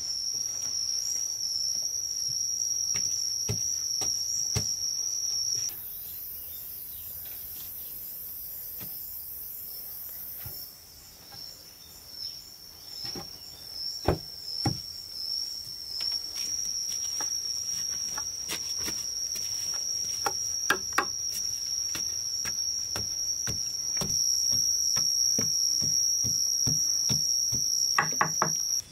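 Steady high-pitched insect drone, swapped for a few seconds by a higher hiss about six seconds in. Scattered dull knocks and scrapes of a hand tool working soil beside a wooden post, clustered in the middle and near the end.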